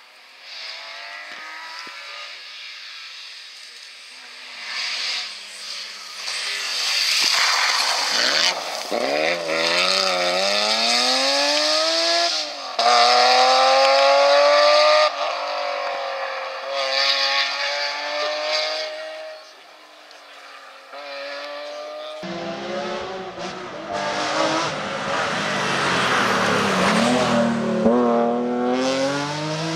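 BMW Z3 M rally car's straight-six engine at full throttle on a tarmac rally stage, pitch climbing and then dropping at each gear change. About two-thirds of the way through it cuts to a second, closer pass.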